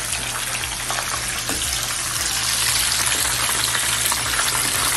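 Breaded crab pieces deep-frying in a wok of hot canola oil: a dense, steady sizzle and crackle of bubbling oil over a low steady hum.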